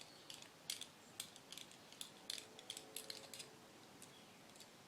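Faint, scattered light metal clicks and taps, about a dozen in the first three and a half seconds, then fewer: small tools and parts being handled while the adjuster screws on a Stage6 MKII scooter clutch are set.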